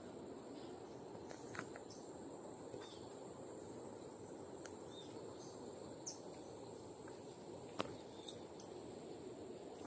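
Quiet forest ambience: a steady high insect whine over a faint low background hiss, with a few brief sharp clicks or chirps, two of them close together near the end.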